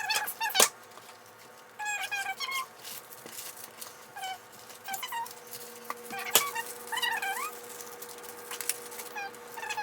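A household pet whimpering in short, high squeaky calls several times, some rising in pitch at the end, with a few sharp clicks and knocks of handling.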